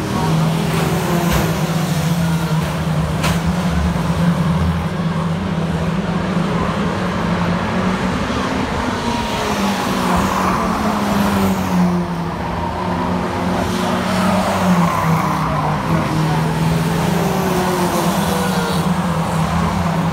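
A pack of saloon stock cars racing round a short oval, their engines running loud and steady, with cars passing close by and their pitch sliding as they go past.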